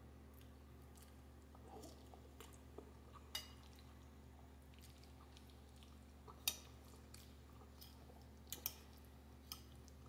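Quiet eating: a metal fork clicks against a ceramic plate of rotini pasta several times, the clearest taps about a third and two-thirds of the way through, with faint chewing. A low steady hum underneath.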